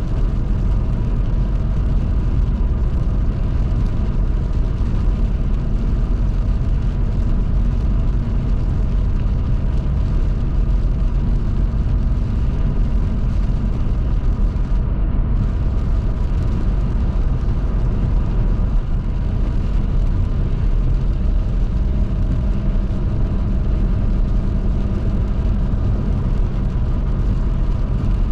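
Car driving on a highway in the rain: a steady, loud mix of engine and tyre noise on the wet road, with no break or change.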